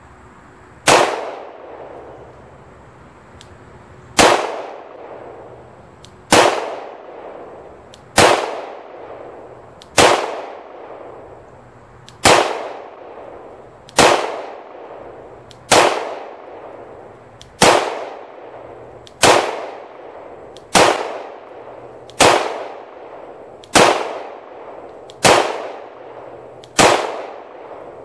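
Glock 17 9mm pistol firing slow, aimed single shots during zeroing, about fifteen in all at roughly one every one and a half to two seconds. Each shot is a sharp crack followed by a ringing echo that dies away over about a second.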